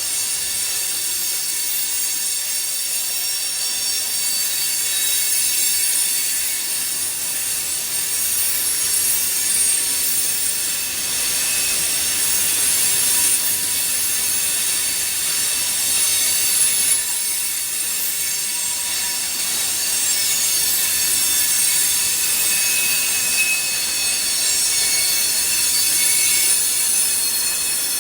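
Canadian National freight train rolling past, its wheels screeching against the rails in a steady, high-pitched metallic squeal.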